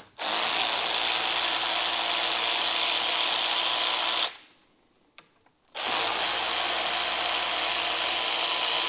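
Power drill backing out T20 Torx screws from a convertible top's front bow, running at a steady speed in two spells of about four seconds with a short pause between them.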